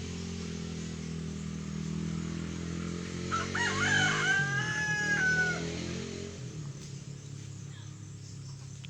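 A rooster crows once, starting about three seconds in and ending on a long held note. Under it an engine runs with a steady low drone that fades away after about six seconds.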